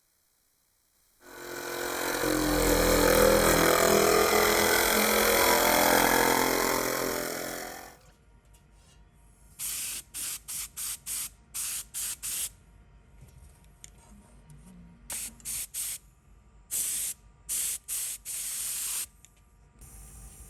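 A loud, steady noise builds up, holds for about six seconds and dies away. It is followed by about fifteen short hisses in quick clusters from a spray-adhesive gun laying contact glue for the upholstery.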